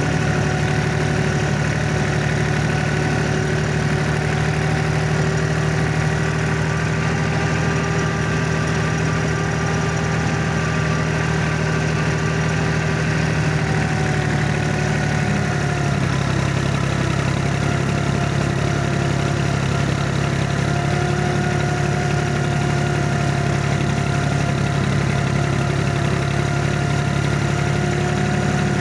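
Yanmar FX24D compact diesel tractor engine running steadily under load while mulching dry standing grass. The engine note dips slightly about halfway through and then holds at the lower pitch.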